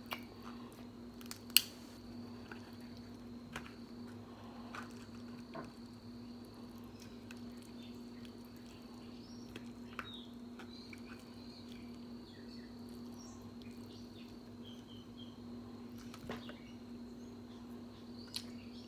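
Quiet eating of a seafood boil: soft chewing with scattered sharp clicks, the loudest about a second and a half in, over a steady low hum.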